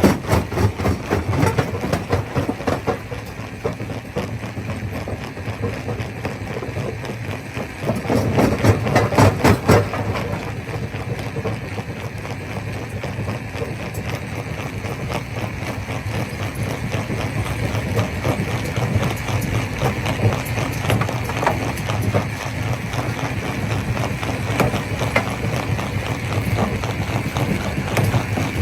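Stone crusher running and crushing rock: a steady machine rumble under a dense, continuous clatter of stones knocking together. The clatter grows louder for a couple of seconds about eight seconds in.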